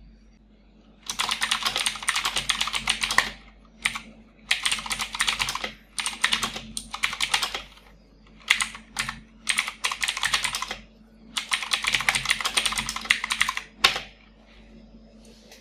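Fast typing on a Gamen Titan II TKL mechanical keyboard with clicky blue switches. It comes as runs of rapid, sharp key clicks lasting one to three seconds each, with short pauses between the runs.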